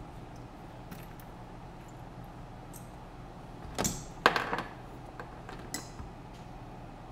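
Carbon-fibre FPV quadcopter frame being handled on a workbench mat: two knocks close together about four seconds in, the second the louder, with a few small clicks and rattles of the frame and parts around them.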